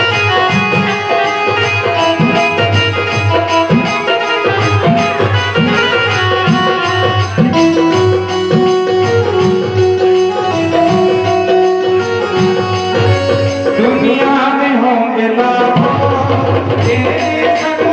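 Devotional music: sustained melody tones over a regular low drum beat, the beat dropping out briefly near the end before returning.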